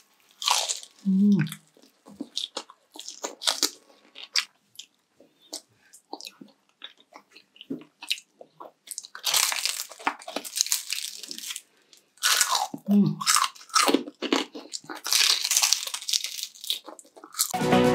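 Close-up crunching, biting and chewing of crispy deep-fried pork, in irregular bouts of crackles with short pauses between bites. Electronic dance music starts just before the end.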